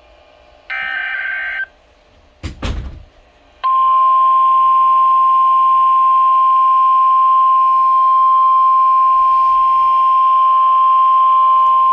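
NOAA Weather Radio alert start: a one-second screech of digital alert-header data, a thump about two and a half seconds in, then the steady, loud 1050 Hz weather-warning alarm tone from about three and a half seconds on. The tone signals that a warning message is about to be read.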